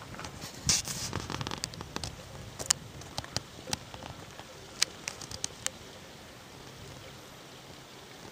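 Scattered sharp clicks and taps: a quick cluster with some rustling about a second in, then single clicks every half second or so, thinning out after about six seconds.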